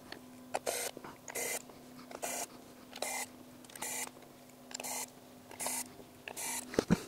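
Pen-style electric precision screwdriver driving the small screws that close the cover of a filter-wheel housing. A steady motor hum runs under about eight short rasping bursts at an even pace, and stops near the end.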